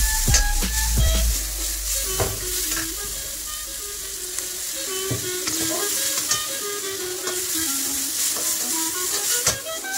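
Baby abalone and garlic sizzling in a hot wok over a gas flame, with a metal wok spatula scraping and stirring them in scattered strokes, a few louder near the start and near the end. Background music plays underneath.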